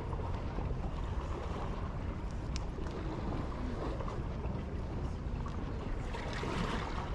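Steady outdoor wind rumbling on the microphone, with open-air hiss from the harbour side and a short high sound about two and a half seconds in.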